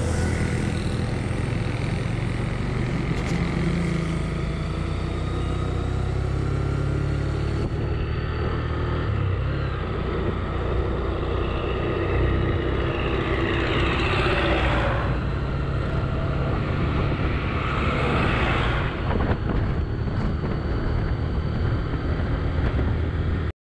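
Motorcycle engine running steadily at road speed with wind and road noise, heard from the rider's seat. Twice, about halfway and again about three quarters in, a louder rushing sound swells up and fades.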